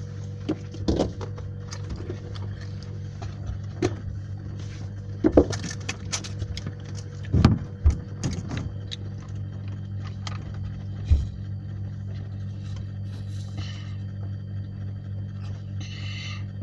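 Scattered short knocks, clicks and handling noises over a steady low hum.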